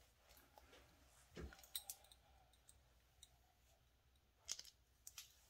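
Near silence broken by a few faint clicks and taps from hands handling small objects: a soft thump with a couple of clicks about a second and a half in, and another short cluster of clicks near the end.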